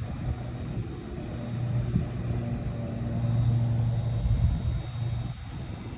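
Low, steady engine hum of a motor vehicle running nearby, growing louder about three seconds in and easing off near the end, with a single short click about two seconds in.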